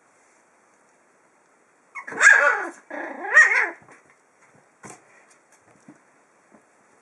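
Five-week-old puppies play-fighting: one gives two loud, growly yapping barks about two seconds in, one straight after the other, followed by faint scuffling and clicks.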